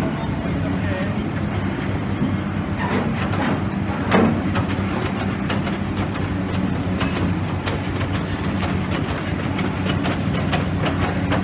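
Demolition excavator's diesel engine running steadily under a run of clanks and knocks, with a louder knock about four seconds in and quicker clattering in the second half.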